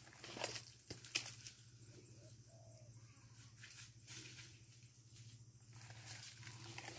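Quiet outdoor ambience on a rural walk: a few soft, irregular footsteps and rustles over a faint steady low hum.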